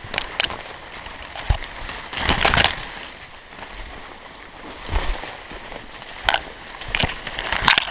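Rustling and crunching in dry fallen leaves and brush, with branches brushing past, as a person and a leashed tracking dog push through dense undergrowth. The noise comes in uneven bursts, loudest about two and a half seconds in and again near the end.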